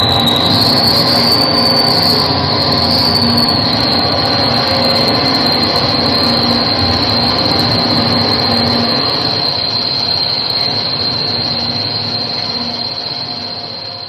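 Experimental electronic noise drone: a dense, steady rumble with a high whistling tone that wavers for the first few seconds and then holds steady, fading out near the end.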